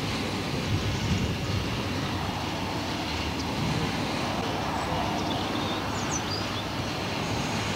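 Steady wind rumbling on the microphone beside open water, with a few faint bird chirps about five seconds in.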